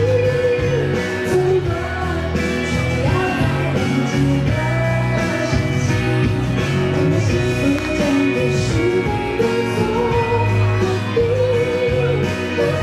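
Live pop song through a concert sound system: a female singer with a backing band, her sung melody rising and falling over the steady accompaniment.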